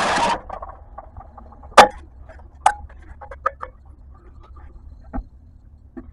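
Tools clinking and knocking on metal: a handful of scattered sharp clicks and taps, the loudest about two seconds in. Just before them, a short burst of hiss cuts off abruptly.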